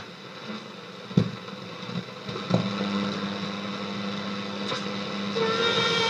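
1952 Saba Freiburg W2 tube radio on shortwave being tuned, its loudspeaker giving hiss and static between stations. There is a sharp click about a second in, a steady low tone sets in about two and a half seconds in, and higher whistling tones come in near the end.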